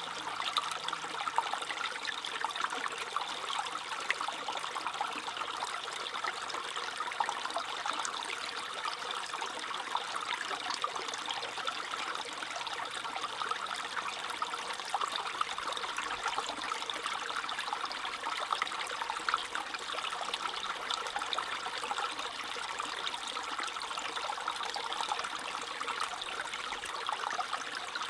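A small stream babbling and trickling over stones, a steady splashing water sound.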